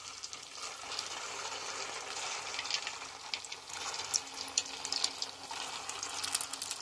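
Rice-flour gulab jamun dough balls deep-frying in hot oil: a steady sizzle full of small crackling pops, building about a second in as the balls go in.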